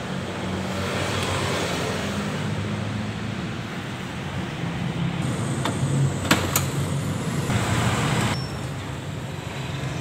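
Road traffic noise: a steady rumble of passing motor vehicles, with two sharp clicks a little past the middle.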